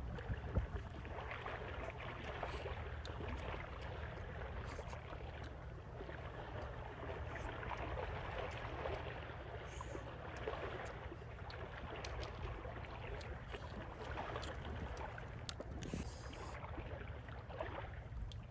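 Steady rushing outdoor background noise with a low rumble, with small scattered clicks and crackles throughout.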